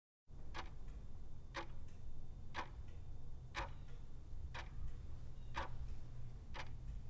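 Clock ticking sound effect, one sharp tick each second, over a steady low hum.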